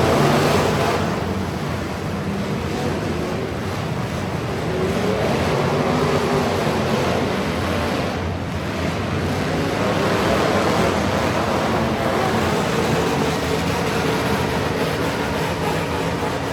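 Truck engines running hard, their pitch rising and falling, over a steady rush of noise.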